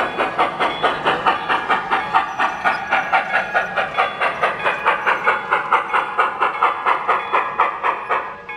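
Sound-equipped HO-scale 2-10-2 steam locomotive (IHC model with a Tsunami2 sound decoder) chuffing steadily through its on-board speaker, about five quick steam-exhaust beats a second with a hiss, as it runs past.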